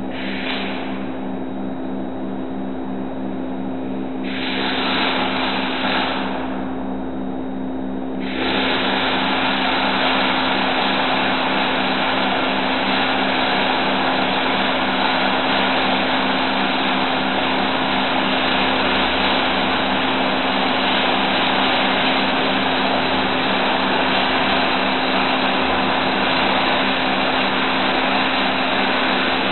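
Welding arc crackling and hissing, in two short bursts and then steadily from about eight seconds in as a long bead is run. A steady machine hum runs under it throughout.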